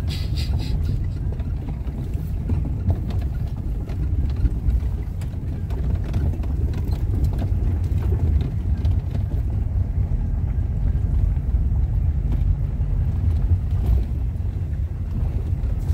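Car driving along a rough dirt road, heard from inside the cabin: a steady low rumble with scattered small knocks and rattles.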